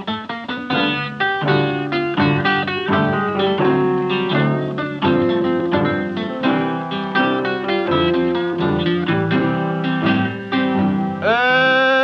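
Acoustic blues guitar intro: a quick run of finger-picked notes and bass strings. Near the end, a man's voice comes in singing a long, wavering note.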